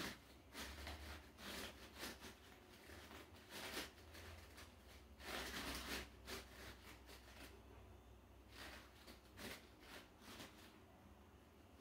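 Faint, irregular nasal breaths and soft rustles from a person doing high-knee balance exercises, over a low steady room hum; the longest breath comes about five seconds in.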